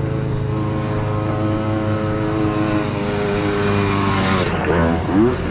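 Trail motorcycle engine running steadily at low revs, its pitch rising and falling a couple of times near the end as the throttle is worked.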